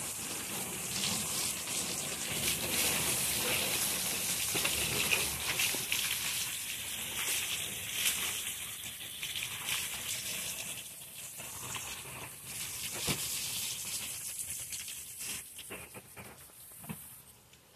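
Water from a garden hose spraying and spattering over fish on a plastic folding table: a steady hiss of rinsing water that eases off and stops near the end.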